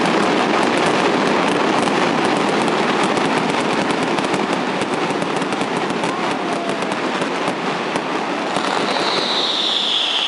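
Fireworks going off: fountain fireworks crackling and popping in rapid, dense succession, over the steady noise of a large crowd. Near the end a high whistle starts and slowly falls in pitch.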